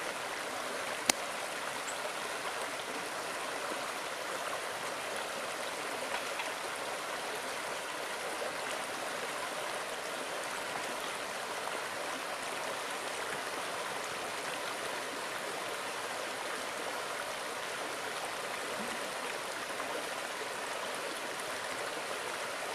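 Shallow river running steadily over rocks in small riffles. A single sharp click comes about a second in.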